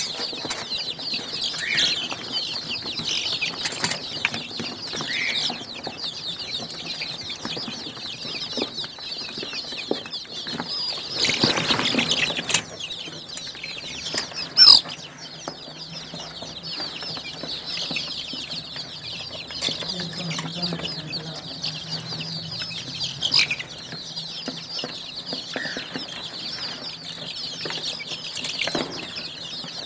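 A flock of five-week-old Golden Misri chicks peeping continuously, a dense chatter of high chirps. A burst of rustling comes about twelve seconds in, and a single sharp knock, the loudest sound, follows a couple of seconds later.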